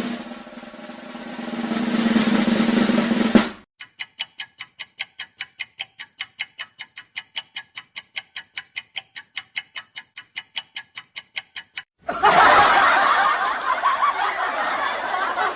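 A dramatic-entry sound effect: a rising drum-roll swell over a low hum that cuts off suddenly about three and a half seconds in. Then a clock ticking, about four ticks a second, for some eight seconds, and near the end a crowd laughing.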